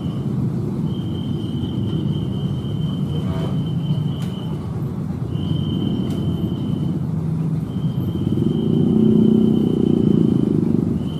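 Electric commuter train rumbling as it approaches, growing louder about eight seconds in. Over it, a steady high-pitched tone sounds in long stretches broken by short gaps.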